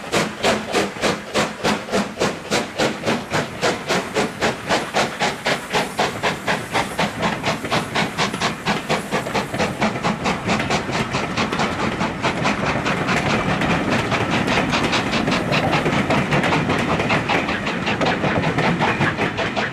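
LMS Black 5 two-cylinder 4-6-0 steam locomotive accelerating away with a passenger train. Its sharp, even exhaust beats start at about five a second and gradually quicken. Over the second half they blur into a steady rush of steam and rolling coaches.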